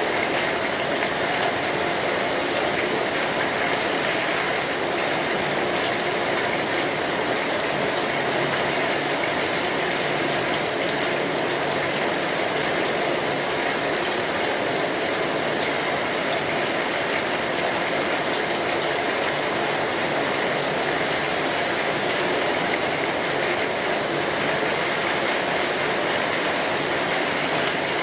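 Steady rain falling, an even unbroken hiss with a few faint scattered drop ticks.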